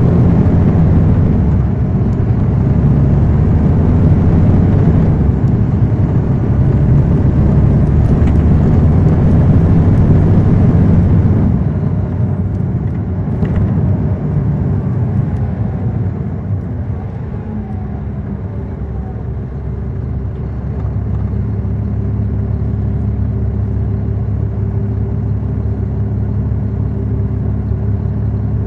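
Caterpillar C13 ACERT diesel engine of a NABI 40-SFW transit bus, heard from the rear seats inside the bus, pulling loud for about the first eleven seconds, then easing off. A falling whine follows, and the engine then runs quieter and steady with an even hum.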